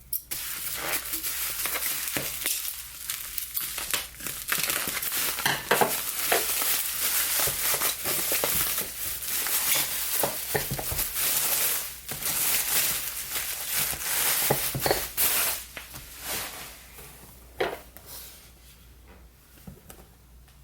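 Packaging crinkling and rustling with many sharp crackles as a candle is handled and unwrapped, quieter over the last few seconds.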